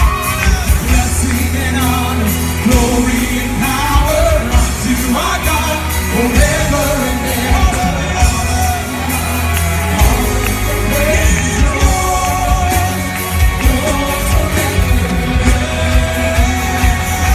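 Live contemporary worship music: a group of singers with a full band, drums keeping a steady beat, in a large reverberant hall.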